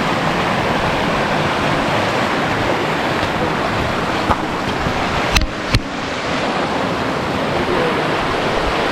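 Mountain stream rushing steadily. Two sharp clicks sound about halfway through.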